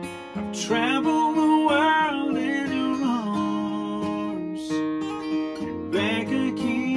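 Steel-string acoustic guitar strummed with a man singing over it. The voice sings a phrase, drops out for about two seconds in the middle, then comes back near the end while the guitar carries on.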